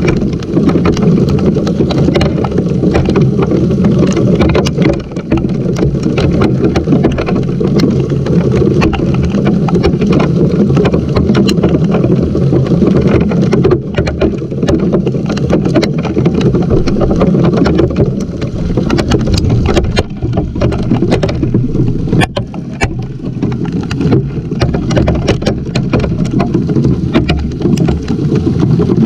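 Hail and heavy rain pelting the camera and a wooden deck: a loud, dense drumming with many sharp ticks of hailstones striking.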